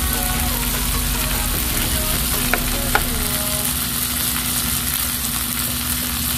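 Chicken pieces sautéing with onion, garlic and ginger in a black frying pan, sizzling steadily as a spatula stirs them: the searing stage before water goes in for tinola. Two sharp clicks, about half a second apart, come near the middle.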